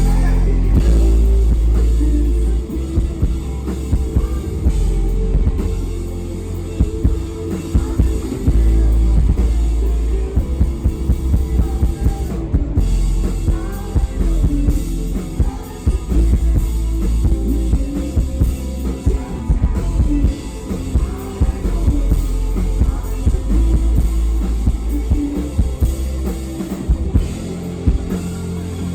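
Rock band playing loud and full, with driving drums and heavy bass; the whole band comes in hard at the very start.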